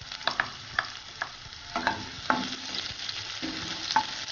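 Chopped onion sizzling in hot oil with cumin and mustard seeds in a non-stick kadai while it is stirred with a wooden spatula: a steady hiss with sharp clicks and taps scattered through it.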